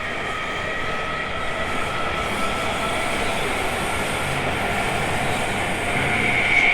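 E217 series electric train running under power. The electric traction drive gives a whine of several tones that slowly climbs in pitch over a steady rumble of wheels on rail. The whine gets louder near the end as the train gathers speed.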